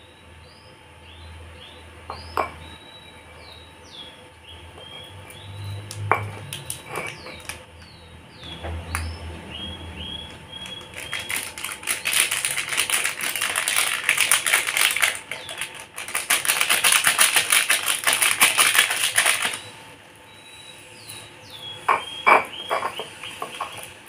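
A metal spoon scraping and clicking rapidly against a mortar as egg is stirred into a powdery bait mix, in two runs of several seconds each, after a few single knocks of the utensil against the bowl. Small birds chirp in the background before and after the stirring.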